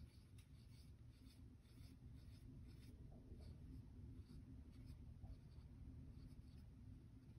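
Faint scratching of a pencil drawing on folded paper: short strokes in an uneven run, about two a second.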